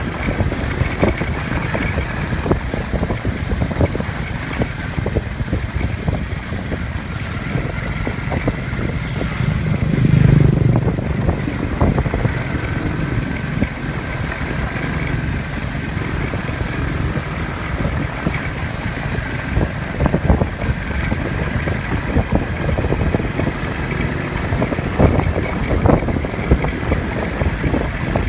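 Off-road vehicle engine running while driving over a rough dirt road, with frequent knocks and rattles from the jolting ride; the rumble swells louder about ten seconds in.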